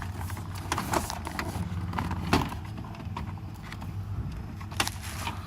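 Scattered light clicks and knocks of plastic parts being handled: the headlight switch's wiring plug and dash trim of a 1988–98 GM pickup being worked by hand, with a stronger knock about two seconds in and another near the end.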